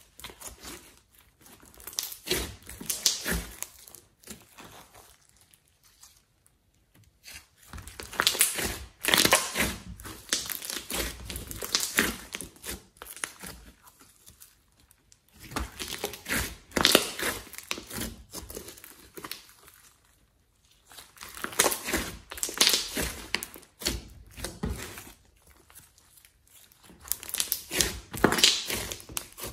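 Hands stretching, pulling apart and pressing a sticky glossy slime with clay mixed in, making wet, sticky crackling and clicking. It comes in bursts of a few seconds, about five of them, with short quiet pauses between.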